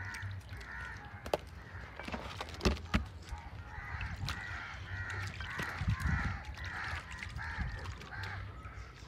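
An animal calling over and over in short repeated calls, most steadily from about four seconds in. A few sharp snaps come early on, as pea pods are split open by hand.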